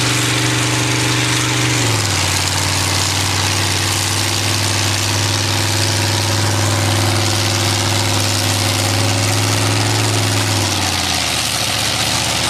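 Tractor engine running steadily, its pitch dropping a little about two seconds in and again near the end.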